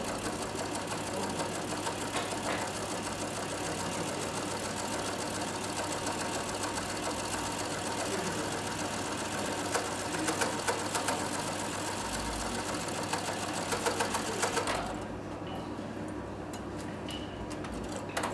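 CowBoy 6900 compound-feed, cylinder-bed binding sewing machine stitching binding tape onto leather, running steadily, then stopping about fifteen seconds in, leaving a low steady hum. A single click near the end.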